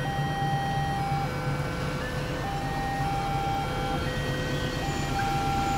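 Railway level-crossing warning signal: an electronic two-tone alarm alternating a higher and a lower tone, each held a little over a second, warning of an approaching train. A steady low hum runs underneath.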